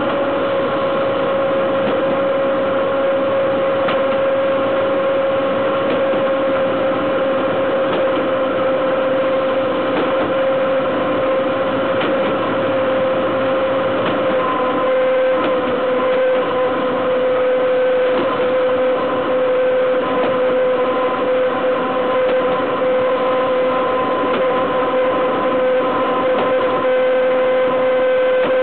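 BDZ class 43 electric locomotive running at speed, heard right at its bogie: steady wheel-on-rail and running-gear noise with a strong whine that drops slightly in pitch about halfway through.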